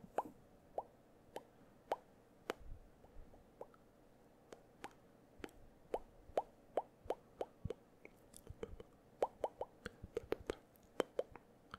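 Close-miked ASMR mouth sounds: a man's tongue clicks and lip pops, single short pops coming irregularly a few times a second and crowding closer together in the second half.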